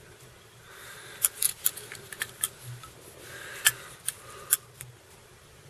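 Small handling sounds of winding a feather collar onto a hook in a fly-tying vise with hackle pliers: a scattering of short sharp clicks over faint rustling.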